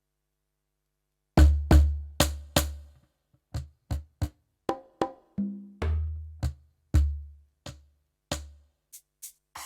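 Yamaha DTX720K electronic drum kit (DTX700-series module) voices struck one at a time: after about a second and a half of silence, a string of single hits mixing deep booming drum sounds with short, sharp clicky percussion, and one brief pitched ringing hit about halfway through.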